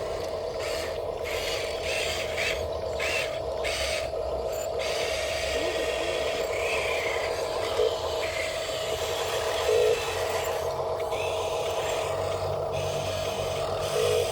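Radio-controlled model construction machine running: a steady high whine from its small electric motors and gearing, with scraping and rubbing over it. Three short, louder tones cut in about halfway through, a little later, and near the end.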